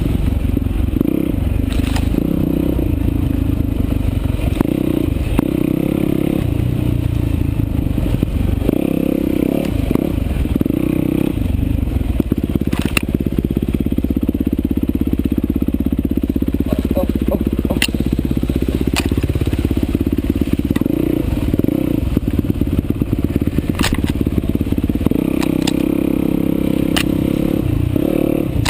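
Motorcycle engine running while being ridden, its note rising and falling with the throttle, with scattered sharp clicks and clatter over it.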